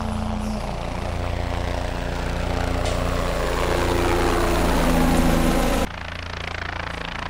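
Helicopter sound: rotor and engine running steadily and growing louder, then dropping sharply about six seconds in and carrying on quieter.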